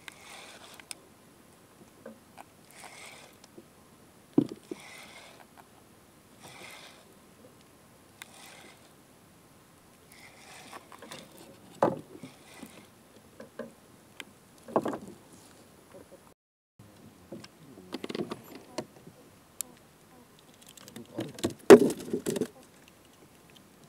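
Water lapping against a small wooden fishing boat's hull in repeated soft swishes, with scattered knocks and thumps on the wooden boat, the loudest cluster near the end.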